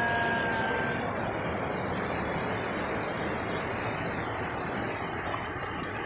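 Steady rush of a waterfall and its stream pouring over rocks. A voice holds one drawn-out note for about the first second, then only the water is left.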